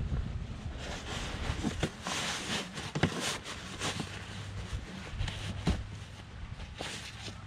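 Heavy Cordura fabric seat cover being pulled and fitted over a truck seat: rustling and scraping of the material in repeated bursts, with a few sharp clicks and knocks as it is worked around the seat.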